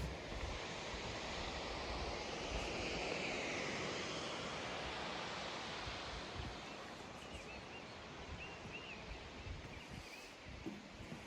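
Waterfall rushing in a steady roar of white water that swells for a few seconds and then eases. A few faint high chirps come through in the second half.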